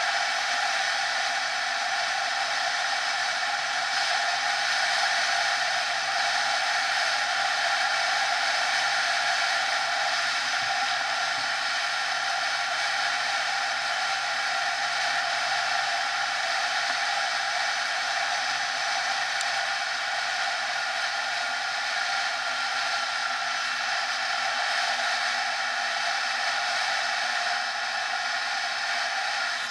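Honda NSR 50's small two-stroke single-cylinder engine running at steady revs while the bike cruises, with a constant rush of wind.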